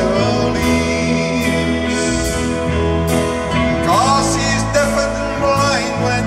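Live band playing: a male lead vocalist singing into a handheld microphone over drums, cymbals and guitar.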